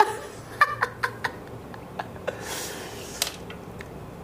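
A man laughing in short bursts over the first second and a half, then quieter, with a few faint clicks and a breathy noise.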